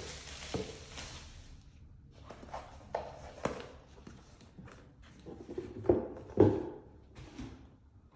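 Cardboard and plastic packaging being handled while the drone box is unpacked. A rustling slide lasts about the first two seconds, followed by scattered light knocks and taps, the loudest about six seconds in.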